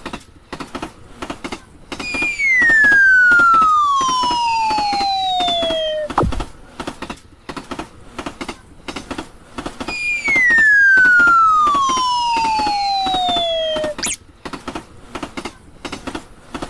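Railroad crossing warning bell clanging in a steady rhythm, the animated crossing's "kan kan". Twice, about two seconds in and about ten seconds in, a loud tone glides steadily down in pitch over about four seconds above the bell.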